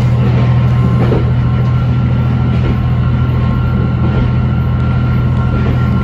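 Moving train heard from inside the passenger car, likely a diesel railcar: a steady low engine drone with even wheel-and-rail running noise, holding level throughout.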